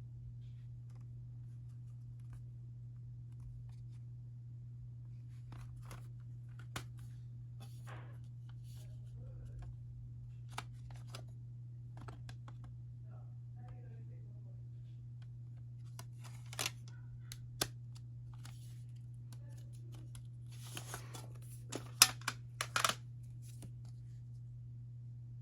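Plastic CD jewel case being handled: scattered light clicks and taps, then a quick run of louder clicks and snaps near the end. A steady low hum sits underneath throughout.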